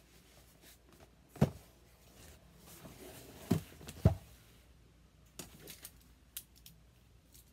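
Dull thumps of a heavy boxed package in a paper shopping bag being handled and set down. There are three loud ones, about a second and a half, three and a half and four seconds in, then a few lighter taps and clicks.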